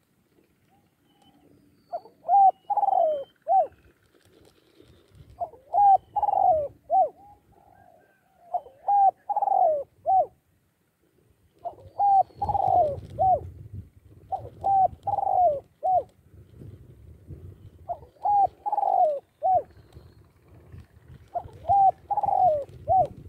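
Decoy spotted dove cooing its song over and over: seven phrases about three seconds apart, each a short note, a louder drawn-out falling coo and a short final note.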